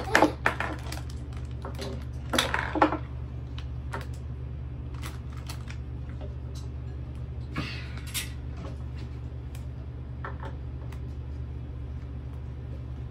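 Small plastic toy pieces clicking and clattering as they are handled, in a few scattered clusters with the loudest about two and a half seconds in. A steady low hum runs underneath.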